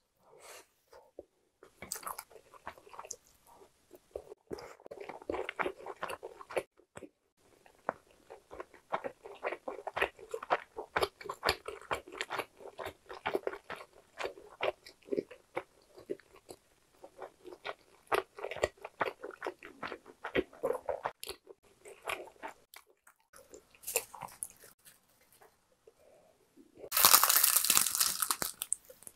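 Close-miked mukbang chewing of a mouthful of rice and side dishes: quick, irregular wet crunching and mouth clicks, with a quieter lull about three quarters of the way in. Near the end comes a much louder crisp crackling of a sheet of dried laver (gim) being wrapped around rice.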